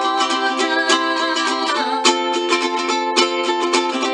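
Ukulele strummed in steady chords, changing chord about two seconds in.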